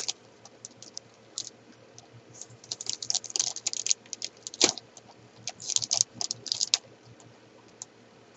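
Bags of jigsaw puzzle pieces being cut open with a pocket knife: crinkling and crackling packaging in quick bursts of sharp clicks, with one louder snap near the middle.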